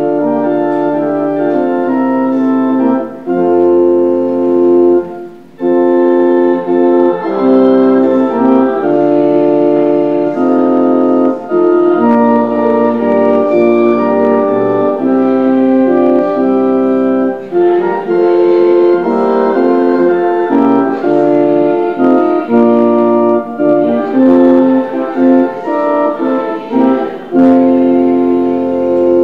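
Organ playing slow, sustained chords, with deep bass notes coming in a few times: the postlude closing a church worship service.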